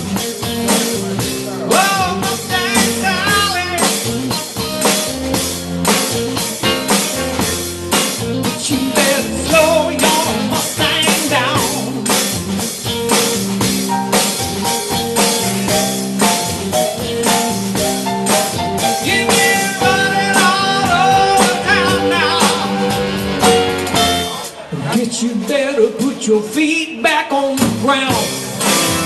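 Live band playing with a drum kit keeping a steady beat on the snare and an electric guitar carrying the melody; the music thins out briefly for a moment about twenty-five seconds in.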